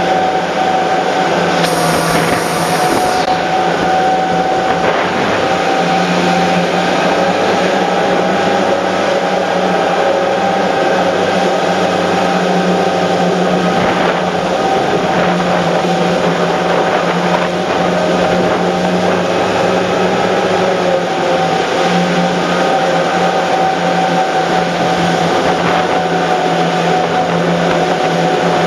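The engines of a 900-horsepower rigid inflatable boat running steadily at speed, a constant drone over the rush of the churning wake and spray, with a short hiss about two seconds in.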